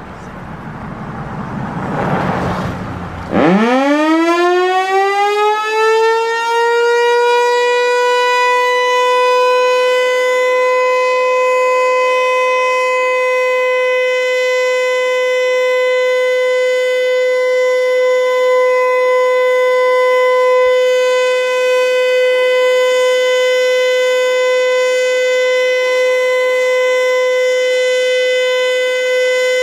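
Federal Signal Eclipse 8 outdoor warning siren sounding its Full Alert signal: a rushing, airy noise builds for about three seconds, then the tone suddenly winds up from low pitch and settles into a steady, loud single tone. The steady tone carries an air-spraying, vacuum-cleaner-like hiss.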